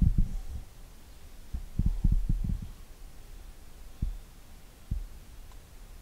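Dull, low thumps and rumbles of handling and movement, in clusters near the start and about two seconds in, then two single knocks about four and five seconds in.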